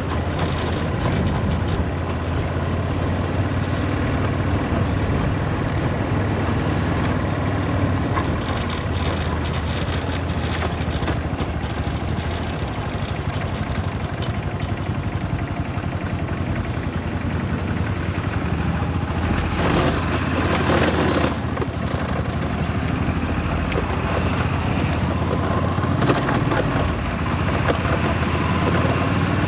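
Yamaha SRX400's single-cylinder four-stroke engine running steadily, with a louder rushing stretch for a couple of seconds about twenty seconds in. The bike has a suspected slipping clutch and failing transmission.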